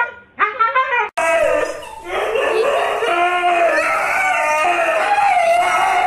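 A husky's short whining calls, cut off abruptly about a second in, then huskies howling together in long, wavering, overlapping howls.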